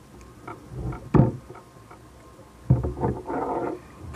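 Water slapping against a plastic kayak hull, with a sharp knock about a second in and a louder splashy stretch near the end.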